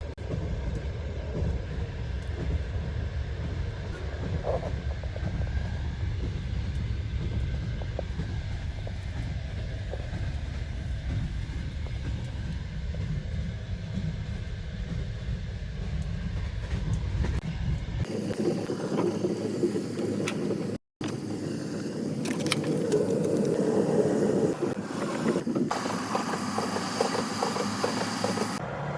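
Steady low rumble of a moving passenger train, heard from inside the carriage. About 18 s in it gives way to a lighter, busier rattle, cut off briefly by a short dropout.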